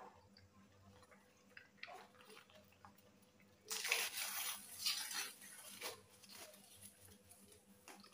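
Two people eating paper-wrapped egg rolls: faint mouth clicks and chewing, then a louder crackling rustle for about two seconds starting halfway through.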